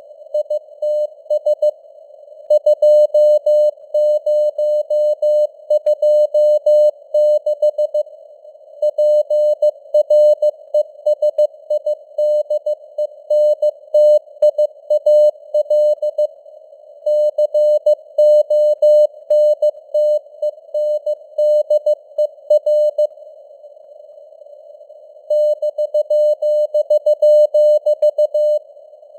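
Morse code (CW) sent at 15 words per minute as a single mid-pitched tone keyed rapidly on and off, the dots and dashes broken by short gaps between words and a longer pause near the end. It sits in a narrow band of simulated radio static, with the signal strength fading up and down (QSB).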